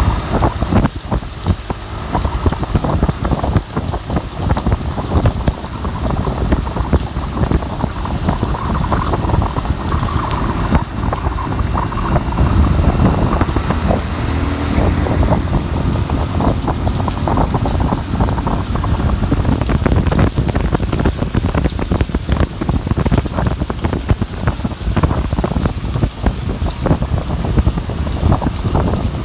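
Rain falling with wind, a deep rumble under a dense spray of drop hits.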